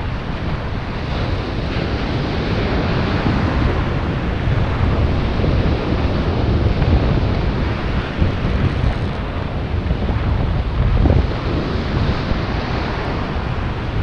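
Wind buffeting the microphone over the steady wash of breaking ocean surf, a loud, continuous rushing rumble.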